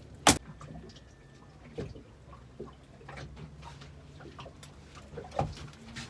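A single sharp knock about a quarter of a second in, the loudest sound, then scattered light taps and knocks over a low steady hum.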